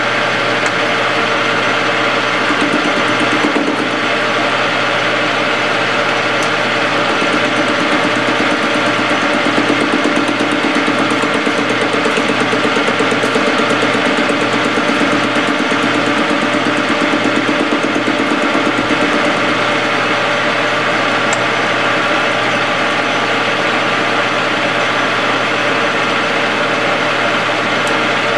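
Metal lathe running steadily, its cutting tool hand-fed into an old spur gear turning on a mandrel. A low hum pulses about once a second through much of it.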